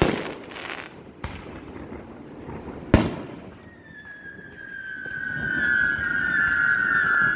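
Fireworks going off: a few sharp bangs, the loudest about three seconds in. Then a long high whistle starts, slowly falling in pitch and getting louder.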